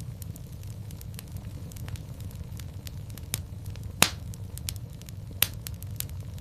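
Fire in a fireplace crackling over a low steady rumble, with scattered small snaps and two louder pops, the loudest about four seconds in and another about a second and a half later.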